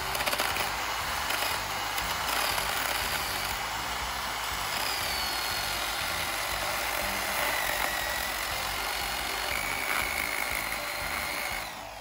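Small chainsaw cutting lengthwise down into the end grain of a standing log, the chain running steadily through the wood with a faint whine that wanders in pitch. The saw stops just before the end.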